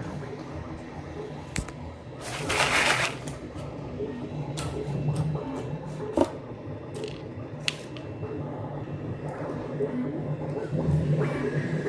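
3D printers running: a steady low hum with scattered clicks, and a short loud burst of hiss about two and a half seconds in.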